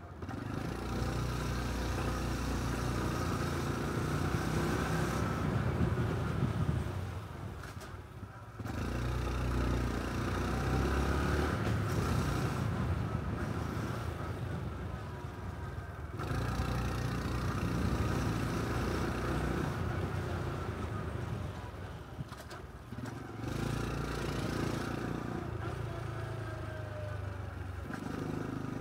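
Small single-cylinder Honda Cub 125 motorcycle engine and exhaust while riding, with wind noise. The engine note falls away several times and picks up again as the throttle is closed and reopened.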